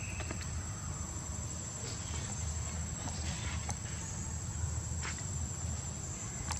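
Insects droning in one steady high note over a low steady rumble, with a few faint clicks and a brief rustle about three seconds in.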